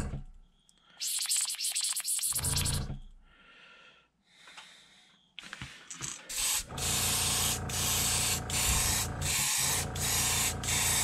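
Airbrush hissing in short flickering spurts while fresh orange paint is back-flushed and mixed with leftover yellow in its colour cup. After a quieter pause it sprays longer, the hiss broken by brief gaps about twice a second as the trigger is worked, with a low steady hum underneath.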